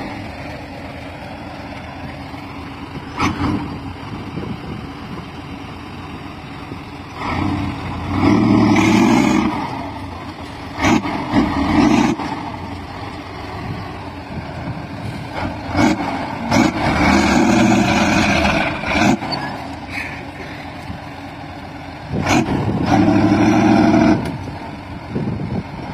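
Diesel engine of a Kirovets articulated tractor stuck deep in mud, running steadily and revving hard in about four surges of a few seconds each as it strains to drive out. A sharp knock comes a few seconds in.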